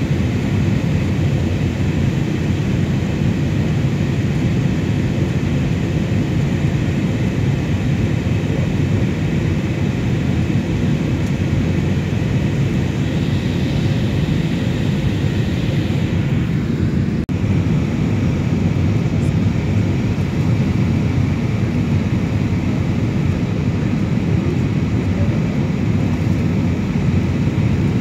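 Steady low rumble of engine and airflow noise inside the cabin of an easyJet Airbus A320-family airliner during its descent, with a faint higher hiss that swells and then drops away about seventeen seconds in.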